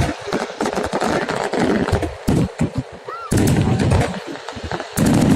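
Fireworks display: aerial shells bursting in rapid, irregular bangs and crackles over a low rumble, growing louder near the end.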